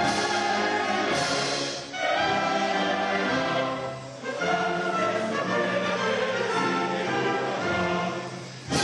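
Symphony orchestra and choir performing together, the music moving in phrases that each swell and then fall away, with short breaths about two seconds, four seconds and eight and a half seconds in.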